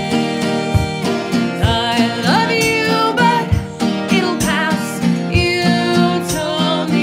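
Live acoustic folk music: two acoustic guitars strummed together while a suitcase kick drum thumps the beat. Two women's voices come in singing about two seconds in.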